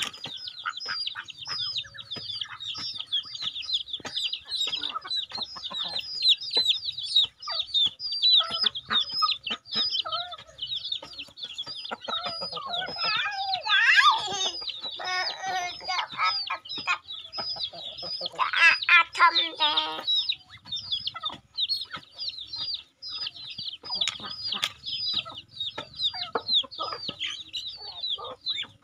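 Poultry chicks peeping rapidly and without pause, with adult fowl calling among them. Two louder stretches of calling stand out about halfway through and again a few seconds later.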